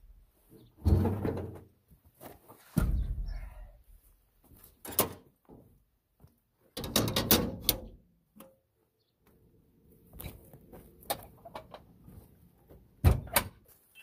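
Clanks and scrapes of a metal shovel working in the open firebox of an outdoor wood boiler, in several separate bursts, with the loudest knock near the end.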